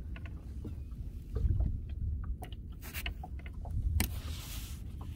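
Low rumble of wind and water around a small open boat at sea, with a few sharp knocks and a brief hissing rush of noise about four seconds in.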